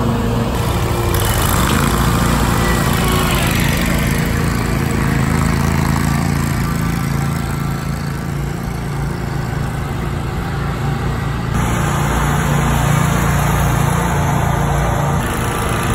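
Engines of Bob-Cat commercial mowers running steadily as the machines are driven around.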